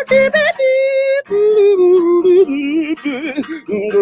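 A man singing a wordless, melismatic vocal run with vibrato, held notes sliding between pitches, over a slow R&B backing track.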